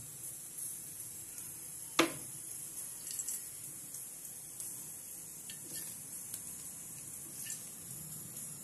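Cooking oil poured in a thin stream into an empty aluminium cooking pot, a faint running-liquid sound. A sharp metal knock about two seconds in and a few lighter clicks later.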